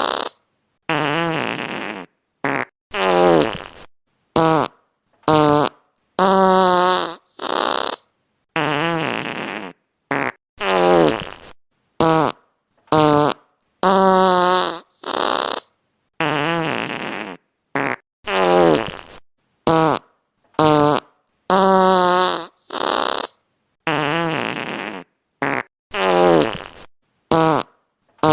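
A string of fart sound effects played one after another, each under two seconds long with silence between them, some sliding in pitch. The same sequence of about seven farts repeats roughly every eight seconds.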